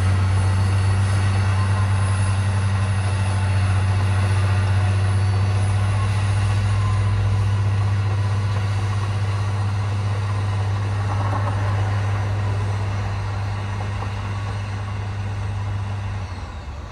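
Caterpillar D9 bulldozer's Cat C18 diesel engine running under load, a steady deep drone. Near the end the engine note drops and gets quieter.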